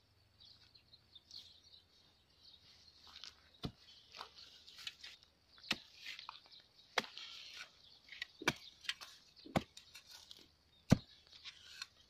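A metal-bladed hand digging tool striking hard, dry, stony soil: a series of sharp, irregular strikes about one a second, beginning a few seconds in, with the loudest near the end.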